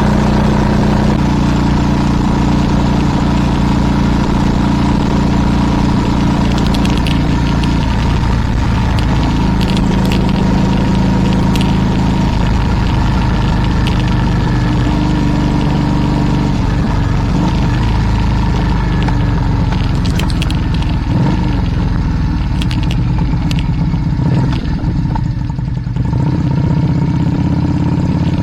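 A vehicle engine running steadily while driving, its pitch stepping up and down a few times as the speed changes, with a few short clicks.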